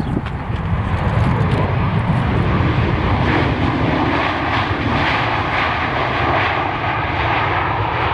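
Jet airliner engines running loud and steady as an aircraft passes, a roar with a faint steady whine over it. It builds over the first second, with wind buffeting the microphone underneath.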